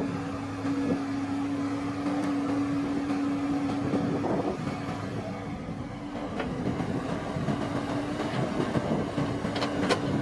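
Rice-harvesting machine's engine running at a steady drone, with a mechanical clatter under it and a few sharp clicks near the end.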